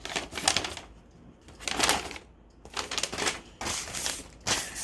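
Paper instruction sheets rustling and crinkling as they are handled, in several short bursts with brief pauses between them.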